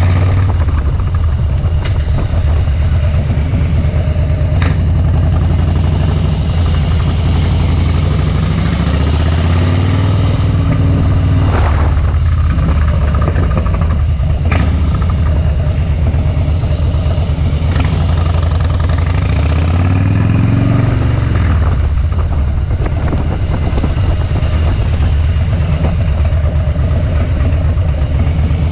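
Harley-Davidson Softail Deluxe's air-cooled V-twin running through Vance & Hines Straight Shots slip-on mufflers while riding. The engine pitch rises twice, about a third of the way in and again about two-thirds through, and drops back after each.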